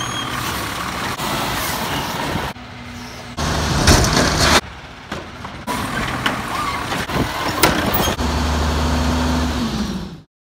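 Automated side-loader garbage trucks at work: a diesel engine running and revving while the arm lifts and dumps a cart, with a few sharp knocks from the cart and arm. The sound changes abruptly several times, as between short clips cut together.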